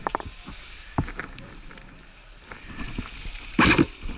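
G36C airsoft electric rifle and gear being handled with sharp clicks and knocks, then a short loud rattling burst of fire about three and a half seconds in.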